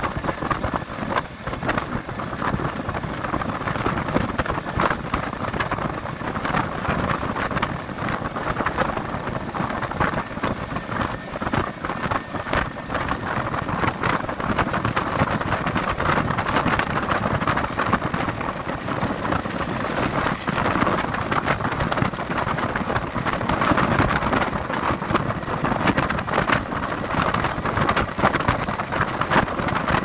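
Steady road and wind rush from a moving vehicle, with dense crackling across the microphone.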